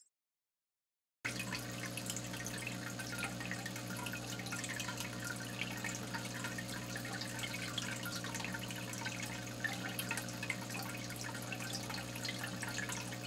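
Aquarium water bubbling and trickling, with many fine ticks of bubbles and drips over a steady low hum; it starts after about a second of silence.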